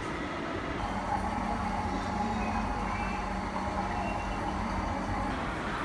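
Steady low rumble of indoor background noise, with a faint steady hum that comes in about a second in and drops out near the end.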